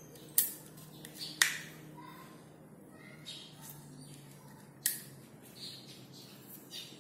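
A toy rubber-band revolver being handled and loaded: three sharp snaps or clicks, two within the first second and a half and one about five seconds in.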